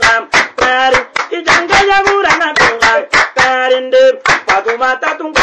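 A voice singing in held, steady notes over sharp handclaps.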